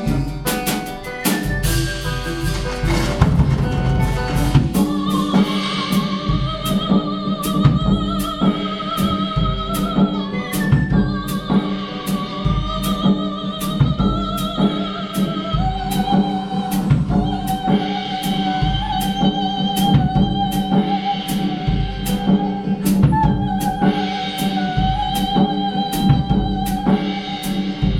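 Music without lyrics: a steady drum beat of about two hits a second under a sustained low note, joined about five seconds in by long held melody notes with a slight waver that change pitch every few seconds.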